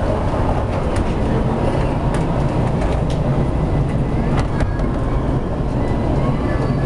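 Running noise of a Prague tram heard from inside at the front: a steady rumble of wheels on rails, with a few sharp clicks and rattles.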